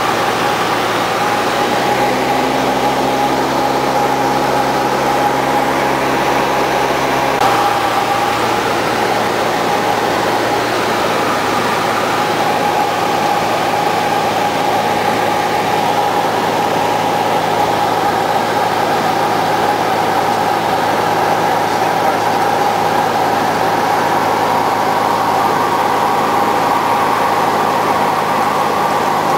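Steady drone of a light single-engine airplane's piston engine and propeller, with rushing wind, as heard inside the cabin in flight. The engine note shifts slightly about seven seconds in, when some of the deeper tones drop away.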